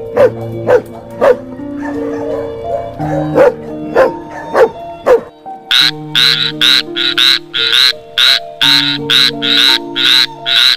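A dog barking in short, sharp barks over background music, then from about halfway through a tree frog calling in a fast, even series of croaks, about three a second.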